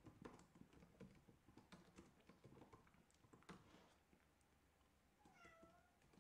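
Faint typing on a computer keyboard: a quick, uneven run of soft key clicks that thins out after about four seconds.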